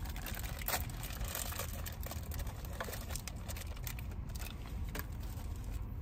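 Small plastic packet being bitten and torn open and handled, with scattered faint crinkles and clicks over a steady low rumble inside a car.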